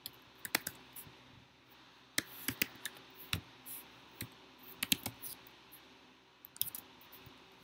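Computer keyboard keystrokes, typed in short irregular bursts of a few clicks with pauses between them.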